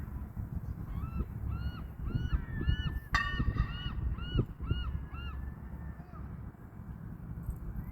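A bird calling a quick series of about ten repeated, arching notes, about three a second, for some four seconds. A sharp click comes partway through, and a steady low rumble runs underneath.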